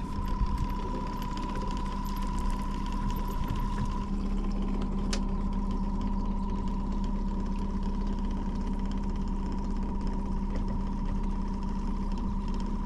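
Boat outboard motor running steadily at slow trolling speed: a constant low hum with a fainter, higher steady tone. A single sharp click about five seconds in.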